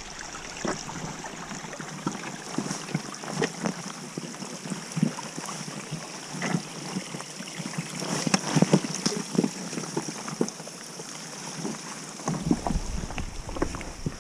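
Irregular scuffs and knocks of boots and hands on wet rock while scrambling up a gully, over a steady hiss of wind and running water.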